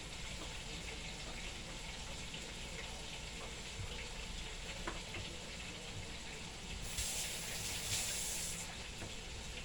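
Chicken frying in hot oil, a steady sizzle, with an electric fan running. About seven seconds in, a brief hiss of running water from the tap lasts under two seconds.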